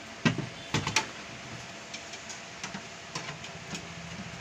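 Metal case of a 32-channel DVR knocked and set down on a counter while being handled. There are a few sharp knocks in the first second, then several light ticks.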